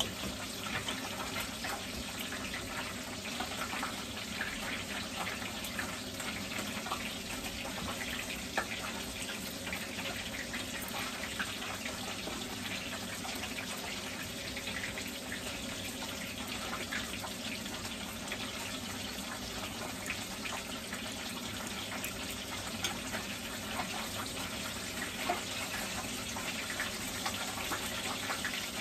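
Steady hiss with faint crackling throughout, and a few light clicks of a knife and fork against a ceramic plate.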